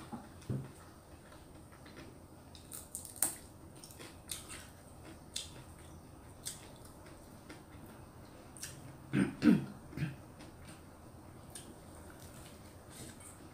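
Eating sounds of someone chewing and eating rice by hand from a steel plate: scattered soft clicks, smacks and small ticks, with a short louder cluster of mouth sounds about nine seconds in.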